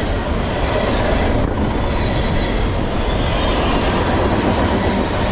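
Freight train cars rolling past fast on steel rails: a loud, steady rumble and clatter of wheels. A faint steady high ringing from the wheels runs over it.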